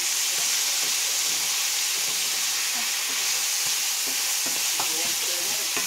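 Pork, eggplant and mushrooms frying in a hot pan with a steady sizzle, stirred with a wooden spatula that scrapes and knocks against the pan.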